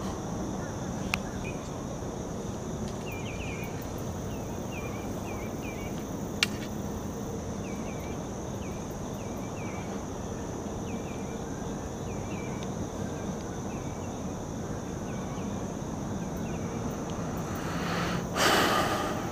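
Pond-side outdoor ambience: a steady high insect drone, with short high chirping calls repeating through the first dozen seconds. Two sharp clicks sound, about a second and six seconds in, and a loud whoosh lasting about a second comes near the end.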